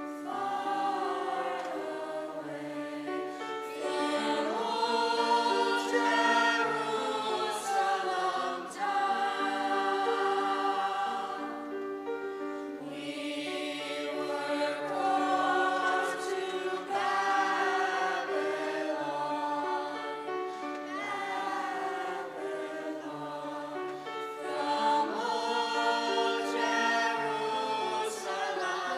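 A choir singing a song with long held notes.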